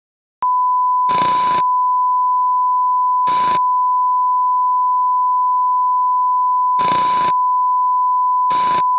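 A steady 1 kHz test tone, the reference tone that goes with TV colour bars, comes on about half a second in. Four short spells of static hiss break over it.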